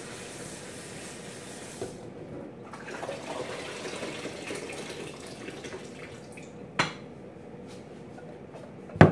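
Water running into a pot, filling it, with a sharp knock about seven seconds in and a louder knock at the very end.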